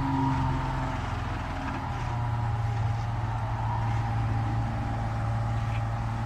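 A vehicle engine idling steadily, its tone dropping slightly and settling about two seconds in.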